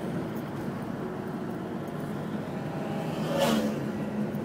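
Steady road and wind noise of a moving car heard at an open window, with a brief louder burst about three and a half seconds in.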